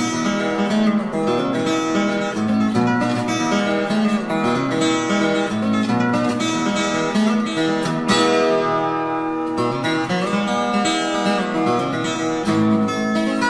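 Instrumental acoustic guitar music, a picked melody over chords.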